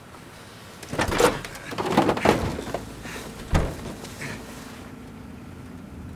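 Door of a wrecked car being pushed open: a run of metal clunks and creaks, then a single hard thud about three and a half seconds in.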